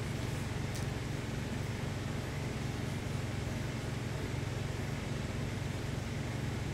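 Steady low hum with a hiss over it, unchanging throughout, and one faint click about a second in.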